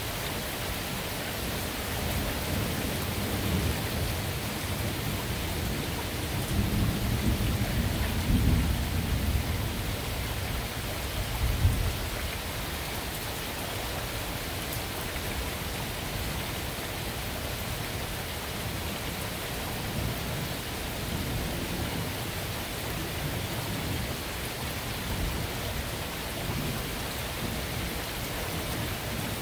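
Steady rain falling, with a long roll of thunder that builds a few seconds in, grows loudest with a sharp crack just before the midpoint, then dies away. Fainter rumbles of thunder come again later.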